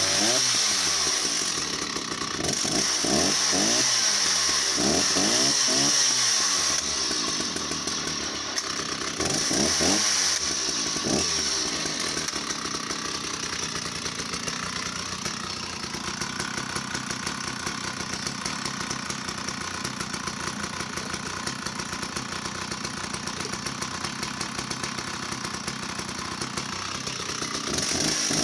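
Stihl 045 AV 75cc two-stroke chainsaw engine running just after starting, revved up and down repeatedly for about the first twelve seconds. It then settles to a steadier, lower running note and revs up again near the end.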